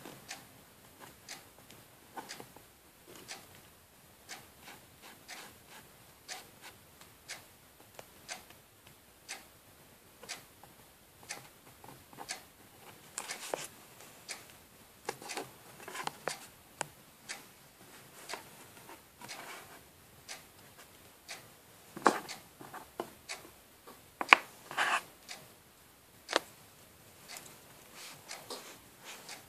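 Fingers rubbing and scratching at the glitter-coated plastic surface of a CD, a run of irregular short scrapes and ticks, with a few louder strokes about 22 and 25 seconds in.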